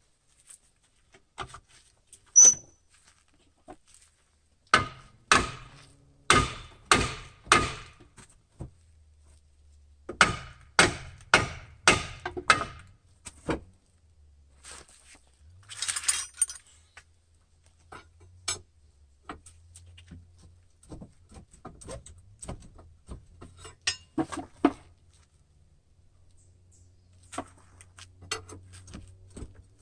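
Hammer blows on the steel front suspension, struck to knock the lower ball joint loose from the steering knuckle, which does not let go. The blows ring and come in two runs of about five, a little over half a second apart, then lighter clinks and knocks follow, with a short hiss about sixteen seconds in.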